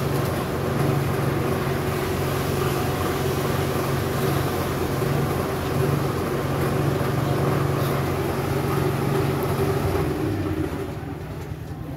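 Steady low mechanical hum from a running machine, which drops in level about ten and a half seconds in.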